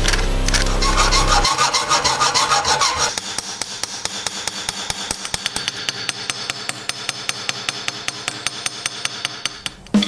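Rapid, even metal-on-metal tapping, about eight strikes a second, from a cylindrical punch worked on a rivet head of an old padlock's case, peening it over. The tapping starts about a second and a half in and grows a little softer after about three seconds.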